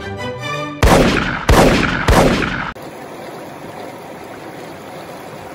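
Three loud, sudden hits about two-thirds of a second apart, then the steady rush of a shallow river running fast over rocks.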